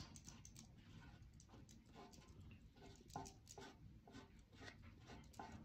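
Near silence, with faint, irregular soft dabs and scrapes of a piece of corrugated cardboard working thick chalk paint over a block in half-circle swoops.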